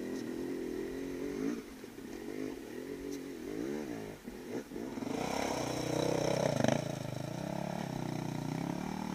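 Dirt bike engines revving in short blips, the pitch rising and falling about once a second. From about five seconds in, a louder and steadier engine sound takes over.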